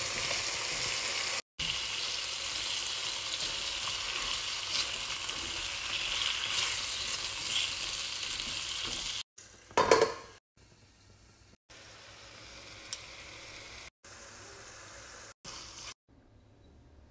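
Sliced zucchini frying in oil and onion-tomato masala in a wok, sizzling steadily while it is stirred with a spatula. The sizzle cuts off about nine seconds in, and a short loud burst of noise follows about a second later. After that come quieter stretches and near silence at the end.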